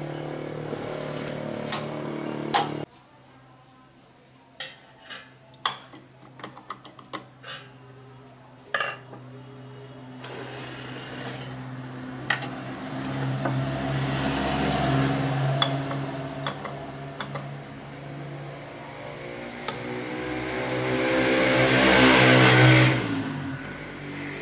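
Mitsubishi sewing machine's electric motor running with a steady hum that stops suddenly, then a run of sharp clicks and knocks. The machine starts up again, speeds up to its loudest near the end, then slows down.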